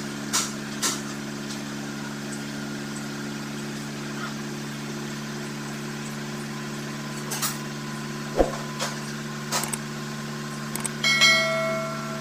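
Steady low hum of an idling engine under the hiss of an oxy-acetylene brazing torch flame on a radiator tank. There are a few sharp clicks and one louder knock, and a brief high-pitched tone near the end.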